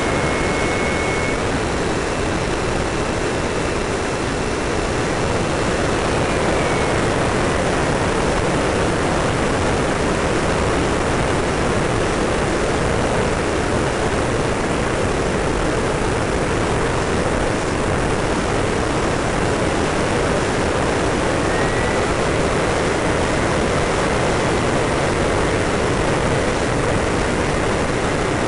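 Steady rushing noise of airflow and engine heard on board a radio-controlled F-86 Sabre model jet in flight. A faint high whine rises in pitch a couple of seconds in, falls away about six seconds in, and returns about twenty-two seconds in.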